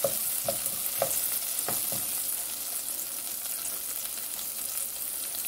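Chopped onion sizzling in olive oil in a saucepan over medium heat. A spatula stirs and knocks against the pan a few times in the first two seconds, then the sizzle carries on steadily.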